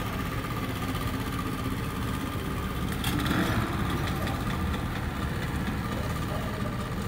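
Boat engine running with a steady low drone, a brief louder burst about three seconds in.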